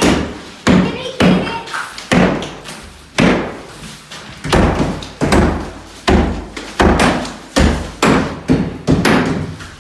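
Drywall being struck over and over, a dozen or so hard thuds, coming faster, about one and a half a second, from midway on.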